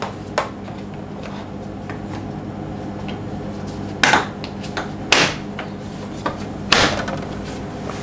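Toe-kick grille of a Whirlpool refrigerator being pushed and snapped onto its metal mounting clips. There is a light knock near the start, then three sharper knocks a second or so apart through the middle, over a steady low hum.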